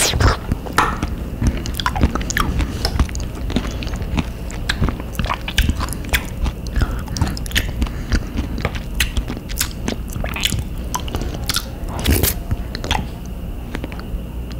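Close-up eating sounds: a small wooden spoon scraping and clicking in a glass of soft avocado ice cream, with mouth sounds of eating. Many short, irregular clicks.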